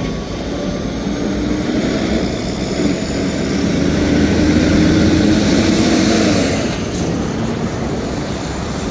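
Diesel locomotive engine running with a steady low drone, growing louder to a peak about halfway through and then easing off.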